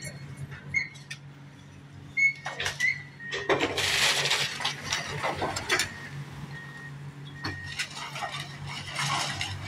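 Demolition excavator working a rubble pile: its diesel engine runs steadily under the clatter and knocking of broken wood and brick, with the biggest crash of falling debris about three and a half seconds in, lasting a couple of seconds.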